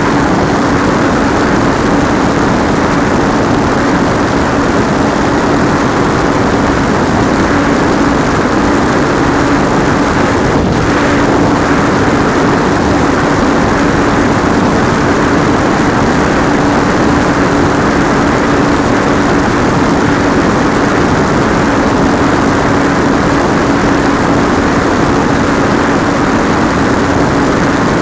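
Model airplane's electric pusher motor and propeller buzzing at steady throttle, one unchanging hum under a dense rush of wind and prop wash. It is heard up close from a camera mounted on the plane.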